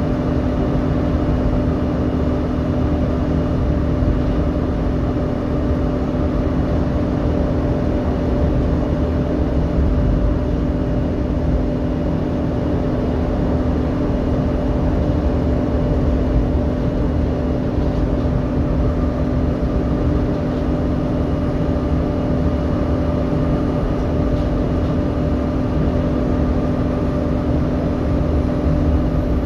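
Volvo B7TL double-decker bus's six-cylinder diesel engine and cooling fan running at a steady pitch, heard inside the lower deck: a constant low drone with a steady whine over it.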